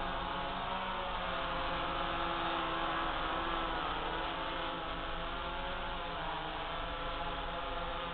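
DJI F550 hexacopter's motors and propellers humming in flight: several steady tones that drift slightly up and down in pitch as the six rotors change speed.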